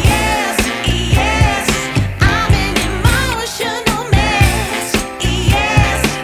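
Pop song with a steady beat and a sung vocal line.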